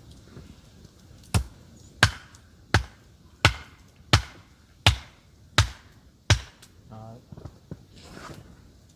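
Eight hard, evenly spaced hammer blows, about one every two-thirds of a second, striking something that is being driven in.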